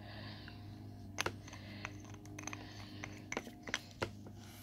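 Scattered light clicks and taps, about half a dozen, from nail polish bottles and their packaging being handled, over a steady low hum.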